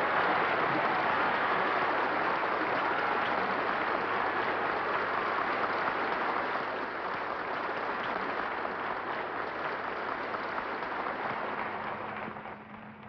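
Audience applauding: a steady mass of clapping that slowly thins from about halfway and dies away near the end.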